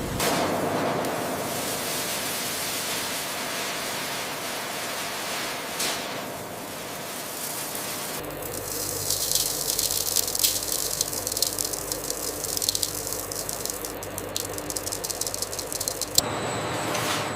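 Processing-plant noise: a steady rushing hiss, which gives way abruptly about eight seconds in to a dense, fine rattle of many small ticks. The sound changes abruptly again near the end.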